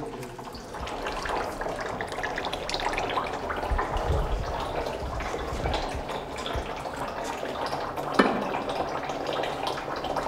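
Wet, watery handling sounds and trickling liquid with scattered small clatters as ground olive paste is loaded into baskets at a hand-turned screw olive press. One sharp knock stands out about eight seconds in.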